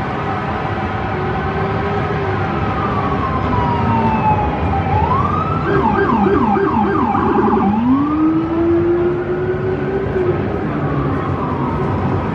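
Fire engine siren over city traffic noise: a slow falling wail, then a rapid yelp for about two seconds around the middle, then a rising wail again.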